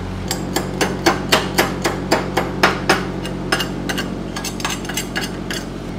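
A hand hammer strikes the fresh 6013 stick tack weld at the base of a steel pipe standing on a steel plate, in a quick run of sharp metallic hits, several a second, that stop shortly before the end; afterwards the tack proves to have held. Underneath, the engine-driven welding machine runs steadily.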